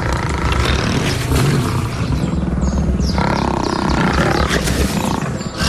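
Lions growling in an attack over a kill, with background music.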